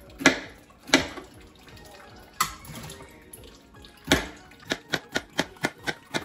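Kitchen knife slicing bitter melon on a plastic cutting board. There are a few separate cuts at first, then, for the last second and a half, quick even chopping at about four cuts a second.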